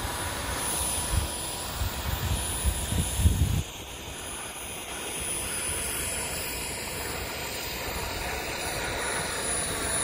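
Radio-controlled model aircraft flying overhead at a distance, a steady hissing engine noise with faint high tones. For the first three and a half seconds there is an irregular low rumble on the microphone, which stops suddenly.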